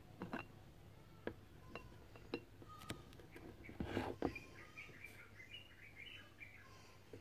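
Metal tweezers clicking and tapping against a wet stone as it is gripped and turned: scattered sharp clicks, some with a brief metallic ring, with the loudest cluster about four seconds in.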